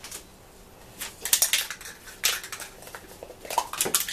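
Aerosol spray paint can being shaken, its mixing ball rattling in quick clicks that start about a second in.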